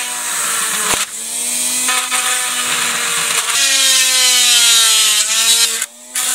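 Dremel rotary tool grinding through the black plastic of a toy excavator's track frame: a steady high whine whose pitch sags as the bit bites and then recovers. It eases off briefly about a second in and again near the end.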